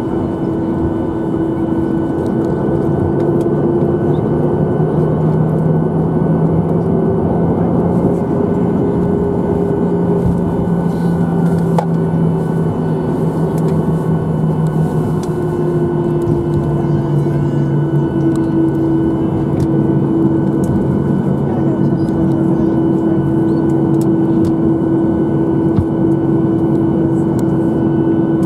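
Inside the cabin of a Boeing 737-900 taxiing after landing: the CFM56-7B jet engines running at idle, a steady drone with a low hum whose pitch wavers slightly.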